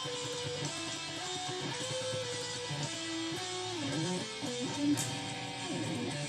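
Electric guitar played lead through a Roland Micro Cube amp over a backing track played through the same amp, with bent, wavering notes around the middle.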